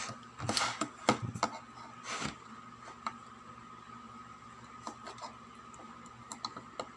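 Light clicks and taps of handling as multitester probes are set against a component on a circuit board, several in the first two seconds and a few faint ticks later, over a faint steady high whine.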